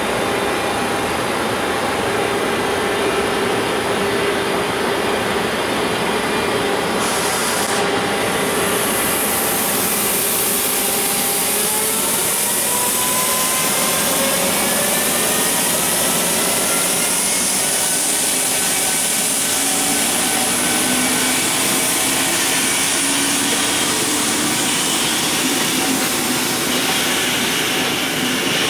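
EF510 electric locomotive starting a container freight train from a stand: several whining tones from its inverter and traction motors rise steadily in pitch as it accelerates, over a constant hiss.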